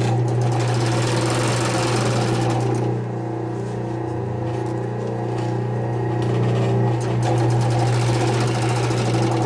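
Industrial overlock machine running as it sews through denim, a fast steady rattle that eases off about three seconds in and picks up again, over steady background music.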